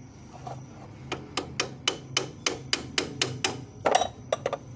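Hammer tapping on metal on a forklift's kingpin assembly: about ten quick blows, roughly four a second, starting about a second in, then a short pause and a few more quick taps near the end.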